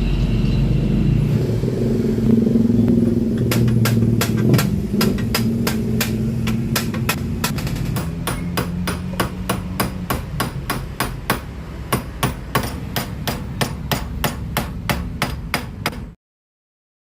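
A hammer striking over and over in a quick, even rhythm, several blows a second, with a steady low hum underneath in the first half; the sound cuts off suddenly near the end.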